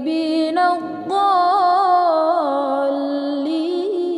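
A woman reciting the Quran in the melodic tilawah style, drawing out the word 'al-mukadhdhibin' into one long held note. The pitch steps up about a second in and wavers in ornamented turns before settling into a steady hold.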